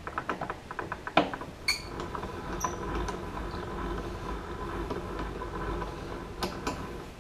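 Vertical milling machine's knee being lowered to drop the table: a quick run of clicks and a knock about a second in, then a steady mechanical whirr for about five seconds.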